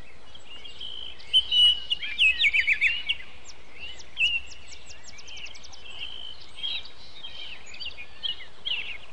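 Several small songbirds singing and chirping, with a loud run of quick chirps about a second in and fast high trills between the phrases.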